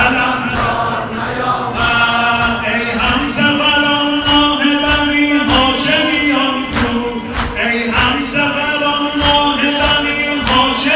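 Men's voices chanting a Shia mourning lament (noha) for a sineh-zani, with a steady beat of hands striking chests underneath, about every two-thirds of a second.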